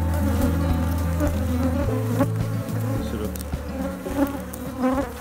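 Honeybees buzzing over the frames of an open hive: a steady hum, with a few brief louder buzzes near the end.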